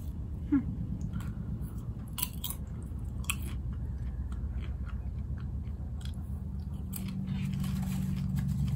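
Popcorn being chewed by mouth, with scattered crisp crunches, over a steady low hum. A brief rising squeak sounds about half a second in.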